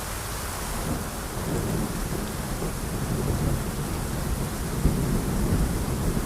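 Steady rain falling, with a low rumble of thunder that swells about a second and a half in and grows louder toward the end.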